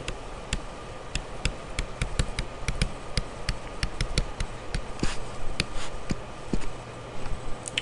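Pen stylus tapping and scratching on a tablet screen while handwriting, a rapid, irregular run of light clicks.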